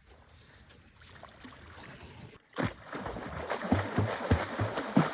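Quiet at first; about two and a half seconds in, stream water rushing and splashing around a canoe starts suddenly, with repeated low thumps.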